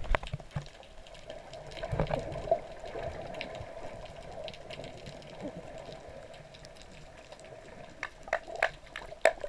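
Muffled underwater sound through an action camera held below the sea surface: water moving and small bubble pops over a steady hum. Several sharper pops and splashes come near the end as the camera nears the surface.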